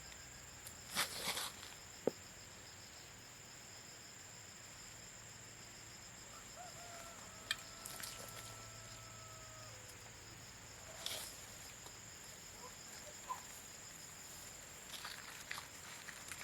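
Insects trilling steadily in a high, even tone, with scattered light clicks and knocks. A faint held tone sounds for a few seconds near the middle, sinking slightly at its end.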